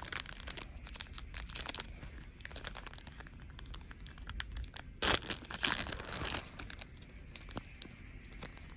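Plastic wrapper of a football trading-card pack crinkling and being torn open, with a louder stretch of rustling and tearing about five seconds in.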